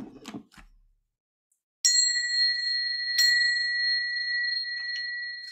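Small brass hand bell rung twice, about a second and a half apart, ringing on with a clear high tone that fades slowly. It is rung as the signal to start circle time.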